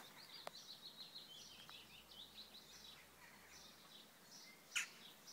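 Faint outdoor birdsong: a quick run of short, high chirps through the first few seconds, then a few scattered notes. A short hiss about five seconds in is the loudest sound.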